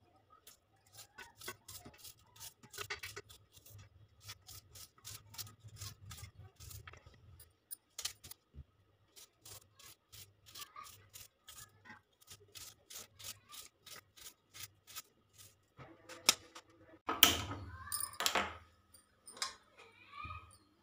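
A kitchen knife slicing a raw onion held in the hand: a rapid, even run of crisp cuts, with the slices dropping into a steel plate. A few louder knocks and clatters come near the end.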